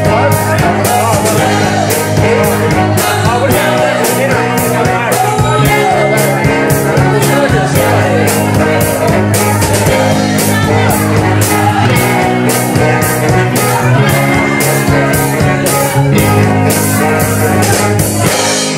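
Live band playing a song: a steady drum beat under bass, guitars, keyboard and a horn section, with a man singing lead.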